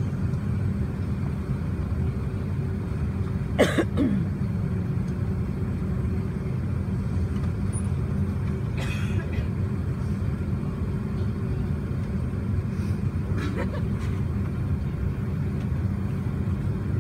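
Cabin noise of a McDonnell Douglas MD-90 during pushback: a steady low rumble with a steady hum. A short, sharp sound about three and a half seconds in stands out as the loudest moment, with fainter brief sounds later.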